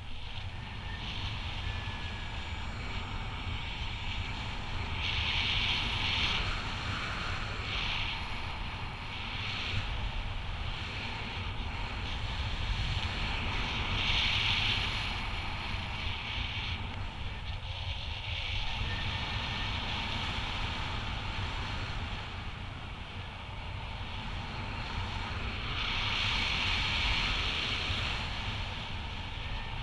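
Wind rushing over the camera microphone in paraglider flight: a steady low rumble under a hiss that swells louder three times, about five, fourteen and twenty-seven seconds in.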